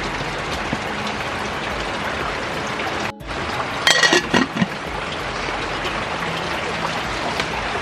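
Steady hiss of rain, with a metal lid clattering onto a metal cooking pot about four seconds in.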